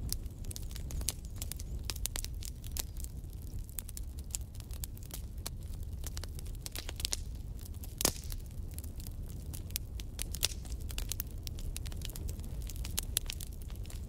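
Fire crackling: a steady low rumble under many irregular sharp pops and snaps, with one louder pop about eight seconds in.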